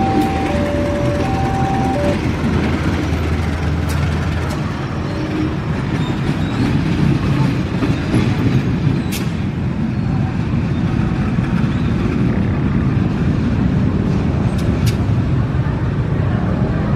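Diesel-electric locomotive engine running as the locomotive passes and then rolls slowly along the track. A level-crossing warning signal sounds two alternating tones for the first couple of seconds. A few sharp clicks occur now and then.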